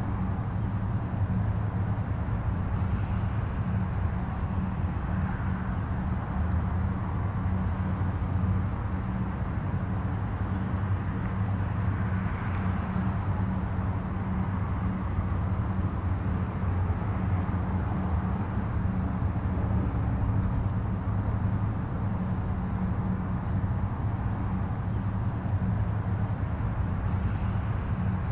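Distant highway traffic: a steady low rumble of engines and tyres, with the tyre hiss swelling gently every several seconds as vehicles pass.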